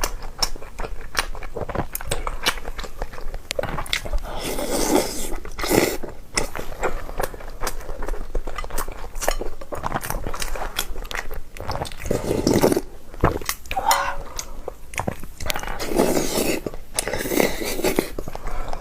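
Close-miked eating: chewing and mouth sounds, with many short clicks of utensils against dishes.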